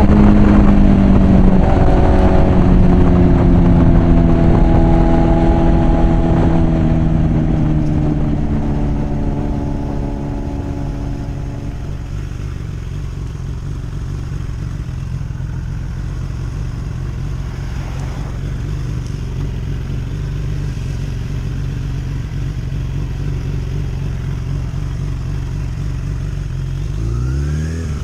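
Suzuki Bandit 650's inline-four engine through a loud Mivv aftermarket exhaust, revs falling steadily over the first dozen seconds as the bike slows, then running steady at low revs. Near the end a quick throttle blip sends the pitch up and back down.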